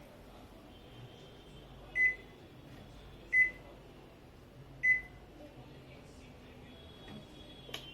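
Samsung CE73JD BXTL convection microwave oven's control panel beeping: three short, high single beeps about a second and a half apart.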